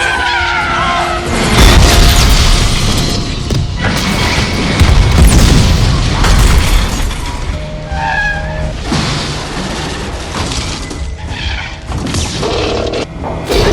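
Action-film sound effects of heavy booms and crashes over dramatic score music. The biggest hits come about two seconds and five seconds in.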